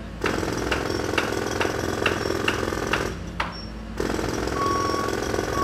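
Jackhammer hammering with a fast rattle and a regular clank about twice a second. It stops about three seconds in and starts again a second later, with two short beeps near the end.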